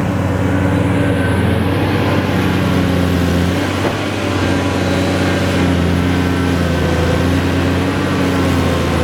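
Cat 330D L excavator's diesel engine running steadily, with a brief slight dip in level about four seconds in.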